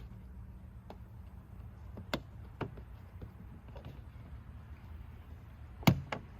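Three sharp plastic clicks and knocks, the loudest near the end, as a reflector is worked loose from a car's rear bumper cover.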